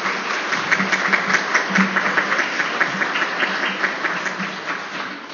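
Audience applauding: a dense patter of hand claps that thins out toward the end.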